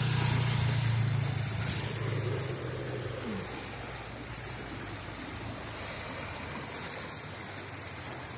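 A motorcycle engine running close by as it rides through floodwater, loudest in the first second and fading away by about three seconds in. Under it and after it comes the steady rush of flowing floodwater.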